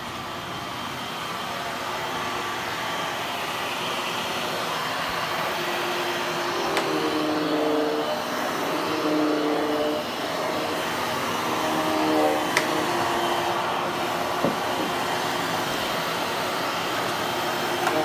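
Hushtone upright vacuum cleaner running on its low power setting, pushed back and forth over olefin carpet. It gives a steady whoosh, and a wavering hum comes and goes through the middle of the run.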